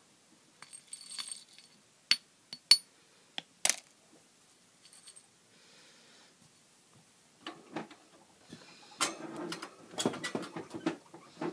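Small hard plastic and metal objects being handled and set down. There is a brief jingle about a second in, then several sharp clicks and clinks, and a longer stretch of busy rattling and clattering over the last few seconds.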